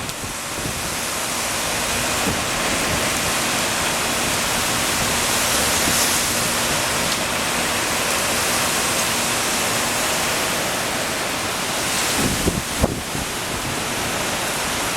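Strong storm wind rushing steadily, with a few low buffeting thumps near the end.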